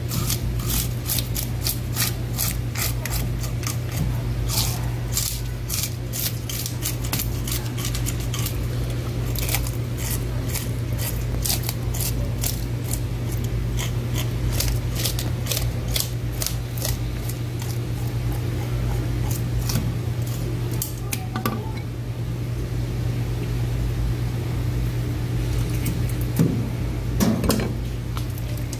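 Knife work on fish at a cutting board: irregular sharp clicks and scrapes, dense at first and thinning out later, over a steady low hum from a fan or refrigeration motor.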